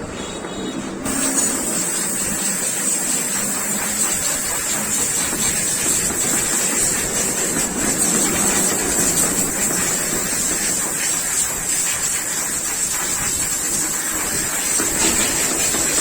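A high-pressure spray hissing steadily, starting about a second in, over a faint steady machine hum.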